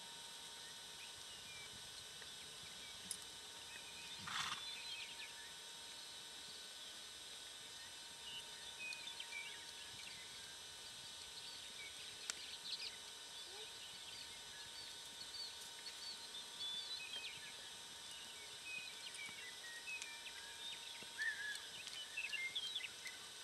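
Faint sound of a horse being ridden on arena dirt: soft irregular hoofbeats, a short snort about four seconds in, and small high chirps scattered throughout.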